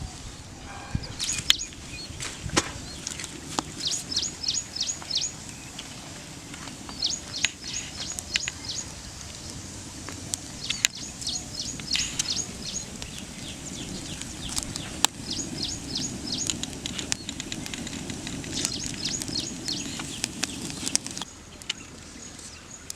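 A bird calling in repeated runs of four to six short, high, downward chirps, about three a second, with scattered sharp clicks and crackles.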